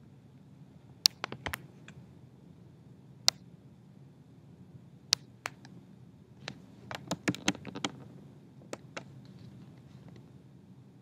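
Irregular sharp clicks and light taps, a few at a time, with a quick run of them about seven to eight seconds in, over a faint steady low hum.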